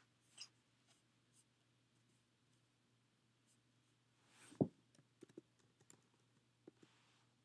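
Near silence: quiet room tone with a handful of faint clicks. The loudest click comes about four and a half seconds in, followed by a few smaller ones over the next two seconds.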